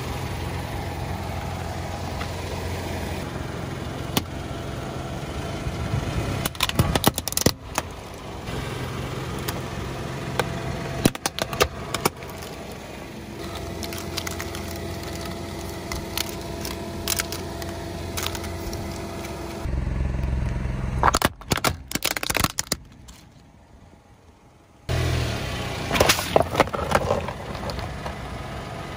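A car engine runs low and steady while its tyre rolls over and crushes objects, giving many sharp cracks and crunches.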